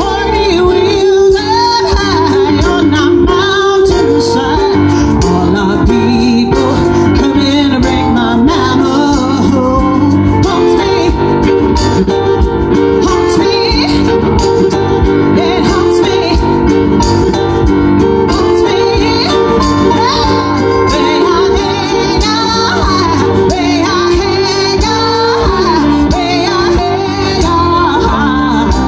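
Live band music with a woman singing lead, her voice sliding between notes over steady accompaniment.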